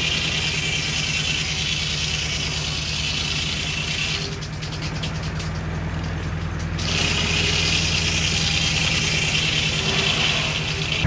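Engine driving a belt-driven sawmill, running steadily with a regular low beat. A higher rushing noise over it stops for about two and a half seconds in the middle, then returns.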